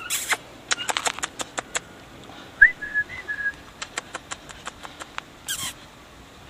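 Sharp mouth clicks and kissing noises in irregular runs, made to catch a puppy's attention, with a short high whistle-like squeak about two and a half seconds in.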